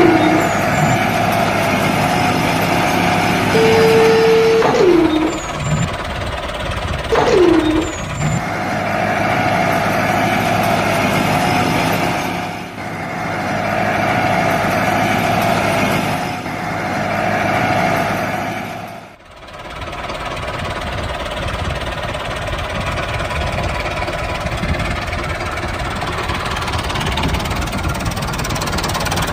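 Steady engine drone like a running tractor, with a few short held tones that drop in pitch in the first eight seconds. The sound breaks off and changes abruptly about 19 seconds in, then runs on steadily.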